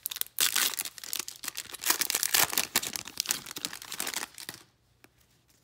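Foil wrapper of a Panini Playoff football card pack being torn open and crinkled by hand, a dense run of crackling that stops about four and a half seconds in as the cards come out.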